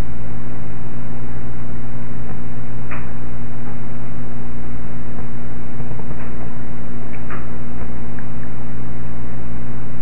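Loud steady electrical hum and hiss from a security camera's boosted microphone audio, with a few faint ticks, the clearest about three and seven seconds in.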